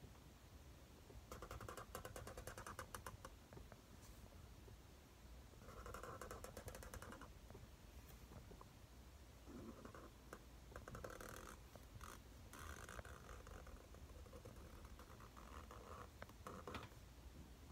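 Felt-tip marker scratching faintly across paper as a cursive signature is written, in several strokes of a second or two each.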